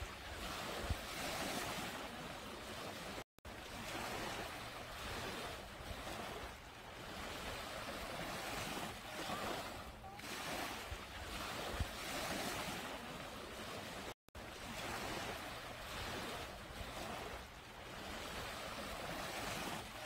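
Small sea waves washing up onto a sandy beach: a steady rush of surf and foam that swells and fades every few seconds. The sound drops out for an instant twice.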